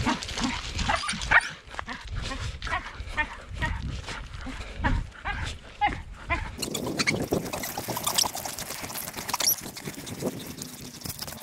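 Excited Siberian huskies on their leads making short whines and yelps amid scuffling and footsteps. About two-thirds of the way through, the background changes abruptly to a noisier hiss with scattered clicks.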